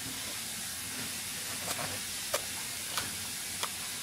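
Steady hiss with four short smacking clicks, spaced a little over half a second apart from about a second and a half in: an 11-month-old baby's lips smacking as she blows kisses.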